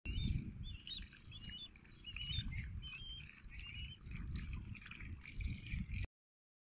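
Small birds chirping over and over in short, quick calls that bend up and down in pitch, over an uneven low rumble; all the sound cuts off suddenly about six seconds in.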